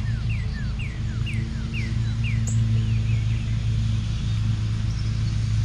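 A steady low engine hum, with a bird singing a run of about six quick down-slurred whistled notes, roughly two a second, that stops a little under three seconds in.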